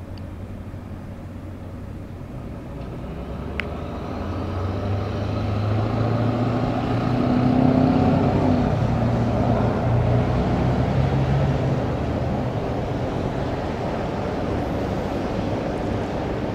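A motor vehicle's engine running close by over street traffic, its low hum swelling through the first half and then holding steady.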